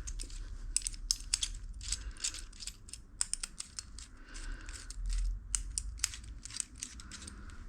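Irregular small metallic clicks and clinks of a hand tool and bike parts being worked while a stiff bolt is taken off a mountain bike.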